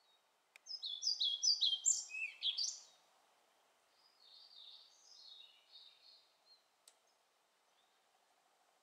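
Male European pied flycatcher singing: a loud phrase of about two seconds made of quick, repeated high two-note units that drop lower at the end. A fainter phrase of similar notes follows a second later.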